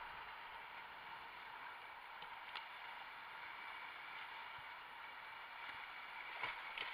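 Whitewater rapids rushing steadily around a kayak, with a couple of faint knocks.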